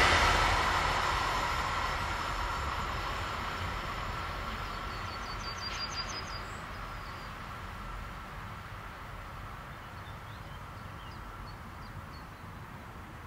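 Long freight train of bulk hopper wagons rolling away, its wheel and rail noise fading steadily into the distance along with a faint steady high tone.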